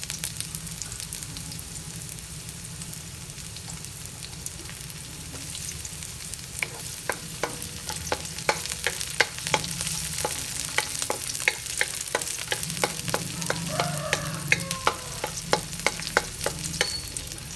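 Garlic and onions sizzling in hot oil in a pan, a steady hiss. From about six seconds in, a utensil stirring them knocks against the pan in rapid repeated clicks.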